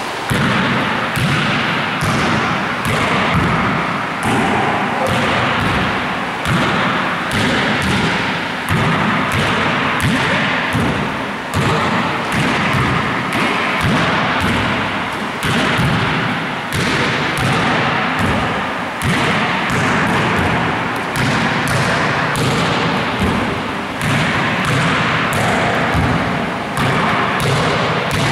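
A basketball thudding again and again as it is passed and caught in a drill, a few sharp impacts a second.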